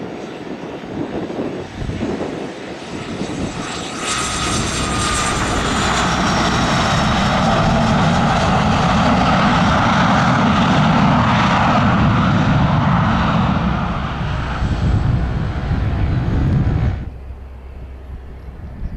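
Cessna Citation Sovereign's twin turbofan engines at high power: a loud roar with a high turbine whine that builds from about four seconds in and eases slightly. It cuts off abruptly near the end, giving way to the quieter low drone of a Cessna 182's piston engine as it taxis.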